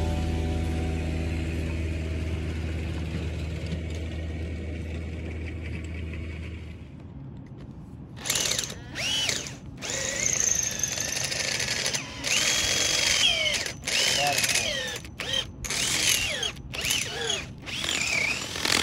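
Background music fading out, then a power tool run in short bursts, its whine rising and falling as it speeds up and slows down.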